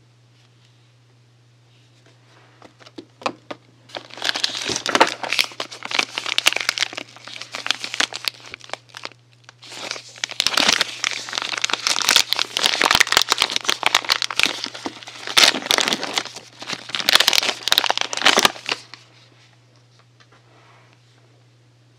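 Soap packaging being unwrapped by hand, crinkling and rustling. It starts about four seconds in, pauses briefly near nine seconds, then goes on until nearly the end.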